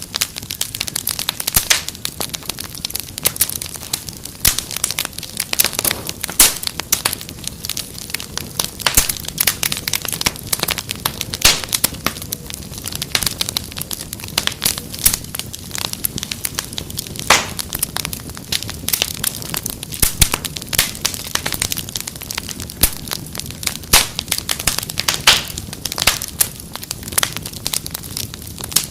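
Wood fire crackling in a fireplace: a dense, irregular stream of sharp pops and snaps over a soft steady hiss.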